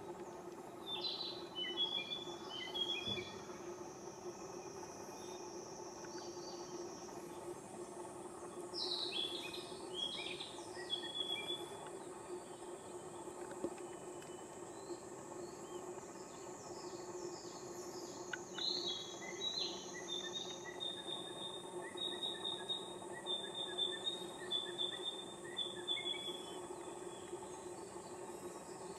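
Forest ambience: a songbird sings bouts of short chirping phrases, several times, over a steady high-pitched insect drone.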